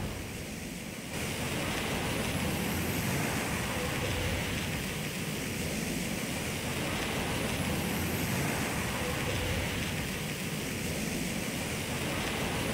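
A steady rushing noise, like a sound-effect drone of wind or surf, with no clear pitch or rhythm. It grows louder about a second in and then holds steady.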